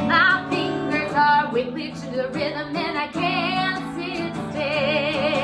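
A children's action song playing: a woman singing with instrumental backing.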